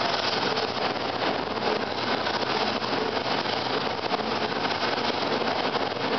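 Steady rumble and rattle of a San Francisco trolley car in motion, heard from on board.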